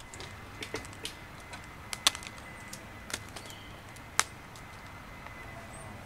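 Irregular sharp snaps and crackles of dry leaf litter and twigs under a person's footsteps, the loudest snaps about two and four seconds in.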